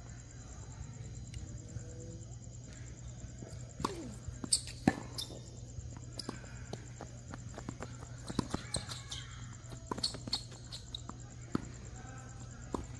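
Tennis rally on a hard court: sharp pops of the ball off rackets and the court. A few loud ones come about four to five seconds in, and a cluster follows between eight and eleven seconds, over a steady low hum.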